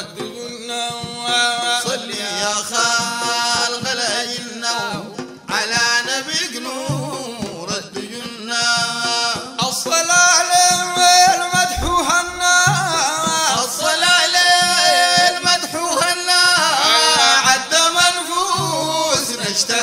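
Arabic devotional praise song (madeeh) for the Prophet: a sung melody in a Middle Eastern style with musical backing.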